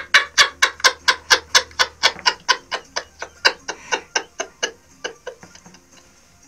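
Hearty laughter in quick, even 'ha-ha' pulses, about five a second, slowing and fading out about five seconds in.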